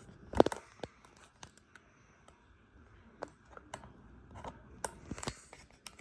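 Scattered short clicks and scratchy rustling, irregular and faint, with one louder knock about half a second in.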